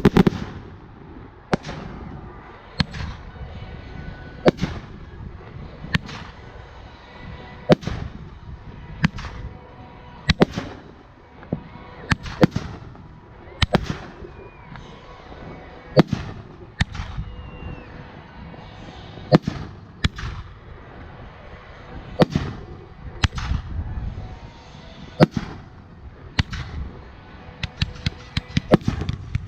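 Fireworks going off: a long string of sharp bangs at irregular intervals, roughly one a second and sometimes two close together, over a low rumble.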